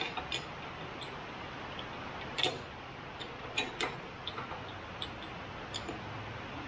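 A few light clicks and taps of metal parts being handled at the open end of a forklift hydraulic cylinder, the sharpest about two and a half seconds in and two close together near four seconds, over steady background noise.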